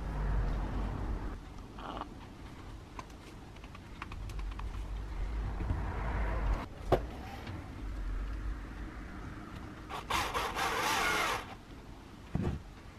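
Hand-assembly noises from an angle grinder being put back together: the armature is slid into the motor housing and the aluminium gear head is seated onto it. Metal and plastic parts knock and click, with a sharp click about seven seconds in and a brief rasping scrape a little before the end.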